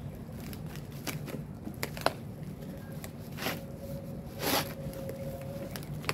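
Flattened cardboard box being gripped and folded by hand: irregular rustling and crinkling of cardboard, with a sharp crack about two seconds in and two louder rustles past the middle.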